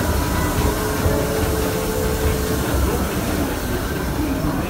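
Disneyland Railroad train rolling along the track: a steady rumble of wheels on rail, with a faint thin squeal in the first couple of seconds.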